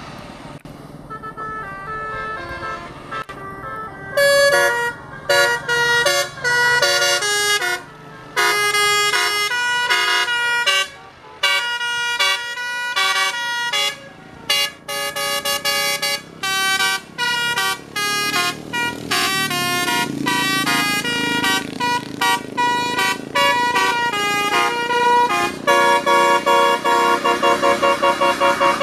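Basuri multi-tone musical air horn playing a "telolet" tune: loud, short stepped notes with brief gaps, starting about four seconds in, turning to quick repeated blasts near the end.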